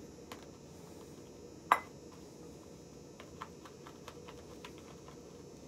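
Quiet room with scattered faint ticks and one sharp click a little under two seconds in: small hard objects being handled.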